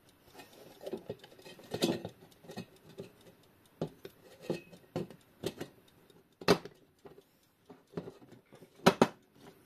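Irregular clicks, taps and light scraping of metal as a Junghans wall clock's movement, dial and bezel are turned and settled into its round metal case, the mounting posts seeking their holes. The sharpest knocks come about six and a half and nine seconds in.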